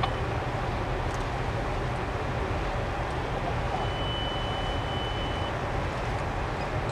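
Steady low rumble of a distant passenger train rolling across a steel trestle, with a brief thin high tone about four seconds in.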